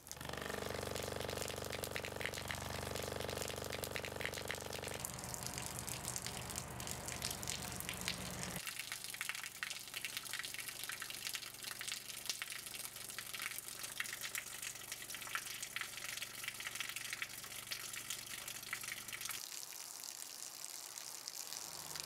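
Thin stream of water pouring from a tube and splashing steadily. For about the first eight seconds a steady low buzzing hum with overtones sounds under it, then stops, leaving only the water.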